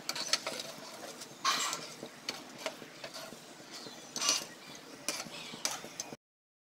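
Steel slotted skimmer and wire strainer scraping and clinking against an aluminium kadai while lifting fried boondi out of hot oil, over a faint sizzle of the oil. A few louder scrapes stand out, and the sound cuts off suddenly near the end.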